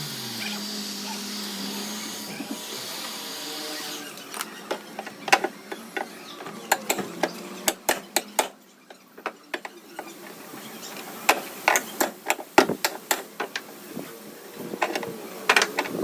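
A hammer or tap-down tool giving irregular sharp knocks on the sheet metal of a Hyundai Verna's body panel, working out dent damage. Some of the knocks come in quick clusters. For about the first four seconds there is a steady hiss instead, which cuts off abruptly.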